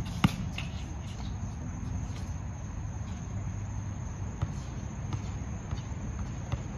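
A basketball bounces once on the court just after the start, with a few faint taps later, over a steady low rumble and a thin, steady high whine.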